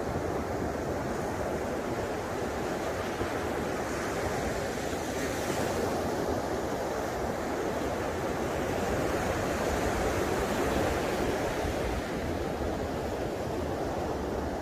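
Ocean surf breaking and washing up a sandy beach: a steady rushing that swells a little as waves break.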